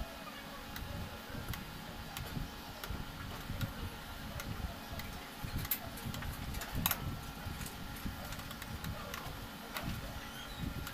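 A refrigerator's mechanical defrost timer being turned by hand with a screwdriver, clicking irregularly as it is advanced from the cooling cycle toward the defrost cycle, over a low rumble.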